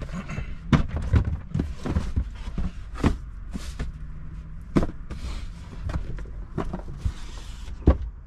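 Cardboard shipping boxes being handled and set down: an irregular series of knocks and thumps with footsteps, the loudest thud near the end.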